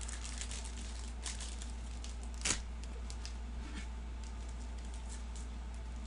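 Steady low hum with faint scattered ticks and rustling, and one louder short rustle about two and a half seconds in.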